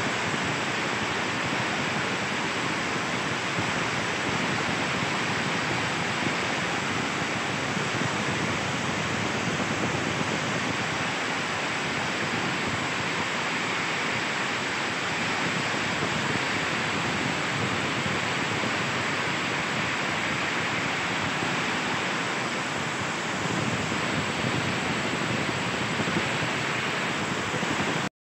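Automatic shuttleless weaving looms running in a weaving shed: a loud, steady, dense mechanical din that cuts off suddenly near the end.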